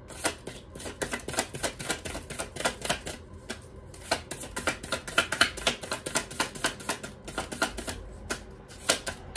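A deck of tarot cards being shuffled by hand: a fast run of papery card clicks and flicks, with brief breaks about four and eight seconds in.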